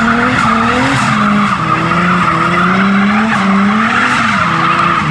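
A car doing a burnout: the engine is held at high revs that rise and fall, under a steady screech of spinning tyres.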